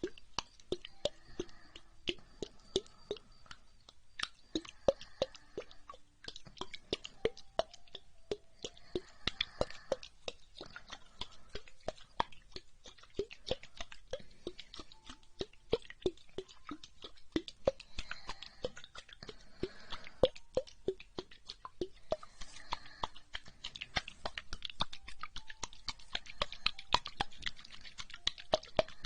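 Close-miked ASMR triggers: rapid, irregular wet clicks and smacks, growing denser near the end, over soft breathing.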